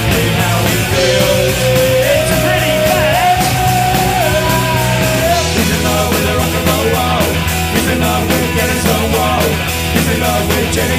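Live punk rock band playing loud and fast, with guitars, bass and drums. A long held melodic line runs over the first half, and the bass drops to a lower note about five seconds in.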